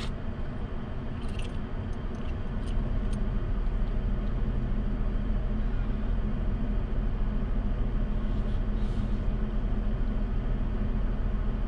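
Toyota Tacoma engine idling steadily, heard from inside the cab. A few light clicks sound in the first few seconds, and the engine grows louder about two and a half seconds in.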